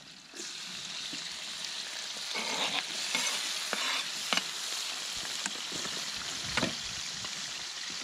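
Sucuklu menemen ingredients frying in olive oil in a pan: a steady sizzle that starts abruptly just after the beginning, with a few sharp taps of a utensil against the pan as it is stirred.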